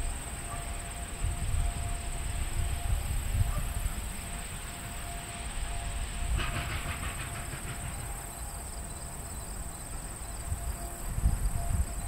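Distant steam train working its way along the line, heard faintly under gusts of wind buffeting the microphone. A brief rapid clicking comes about six and a half seconds in.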